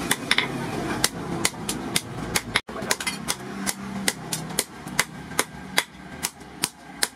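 Hand hammer striking red-hot steel cut from a motorcycle brake rotor disc on a steel anvil: steady metal-on-metal blows, about two to three a second, broken once by a short gap.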